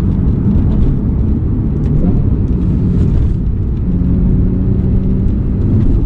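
A Porsche's engine running steadily as the car drives along, with low road rumble and an engine note that holds fairly even and shifts slightly in pitch.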